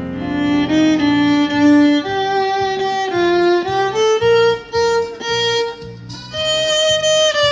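Instrumental background music: a melody of long held notes that climbs step by step over a steady low beat, starting a new, higher phrase a little past the middle.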